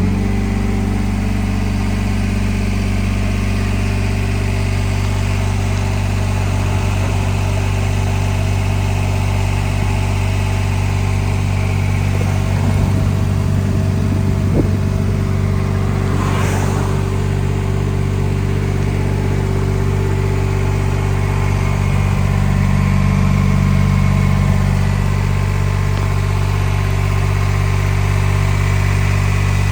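Yanmar YB10 crawler backhoe's diesel engine running steadily at about idle, growing a little louder for a few seconds about two-thirds of the way through.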